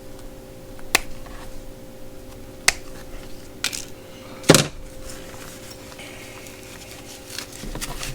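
Handling noise as work gloves and their packaging are turned over: a few sharp clicks and knocks, the loudest about four and a half seconds in, over a steady low hum.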